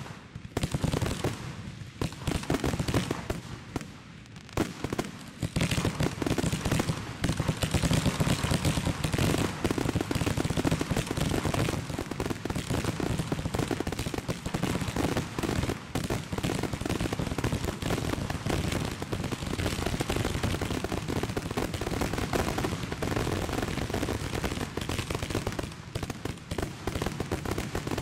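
Aerial firework shells bursting in rapid, overlapping succession: a rapid barrage of booms and crackle that grows into an almost unbroken roll from about five seconds in.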